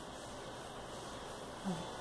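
Steady low background hiss, with one brief low pitched sound, a short hum or grunt-like blip, near the end.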